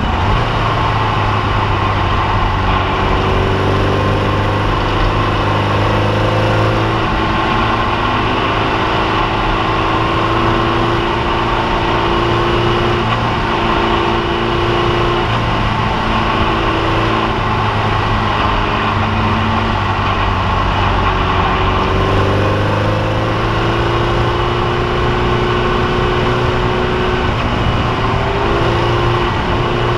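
Air-cooled Volkswagen flat-four engine of a Formula Vee single-seater racing at speed, heard from onboard. Its note climbs and drops several times as it is driven through the gears, over a steady rush of wind and road noise.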